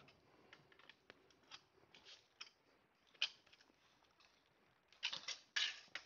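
Metal cot leg frame clicking and scraping as it is worked into the holes of the cot's side rail: scattered faint clicks, then a louder run of scraping clatter about five seconds in.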